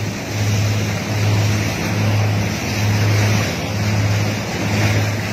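Boat engine droning, its low hum swelling and fading about once a second, over the rush of water along the hull.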